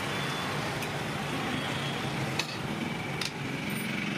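Steady outdoor background noise with a few short, sharp metallic clinks, about a second apart, of a steel ladle against a steel serving pot.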